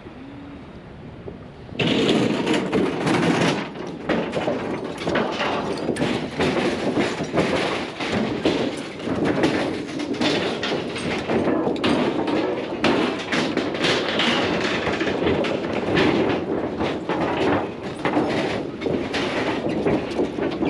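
Overland 4x4 on the move: steady road and wind noise with constant rattling and knocking. It starts abruptly about two seconds in, after a quieter opening.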